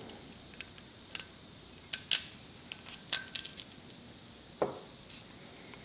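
Scattered light clicks and clinks, about half a dozen, as a used belt idler pulley and its metal bolt and keeper are handled and turned over on a wooden bench, with a duller knock near the end.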